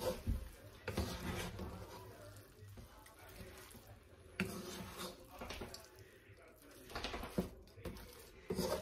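Wooden spoon stirring and scraping thick rice and steak around a skillet, with irregular scrapes and a few short knocks against the pan.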